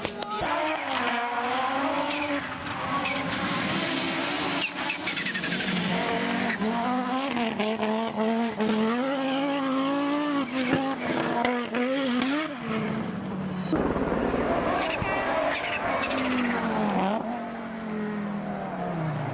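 Audi Quattro Group B rally car's turbocharged five-cylinder engine running hard, its pitch rising and dipping with throttle and gear changes. In the last few seconds the engine note falls steadily as the car passes by.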